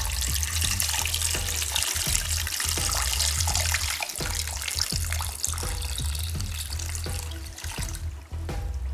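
Brine poured in a steady stream from a glass jug onto whole raw chickens in a stainless steel bowl, splashing and trickling, thinning out and stopping near the end. Background music plays underneath.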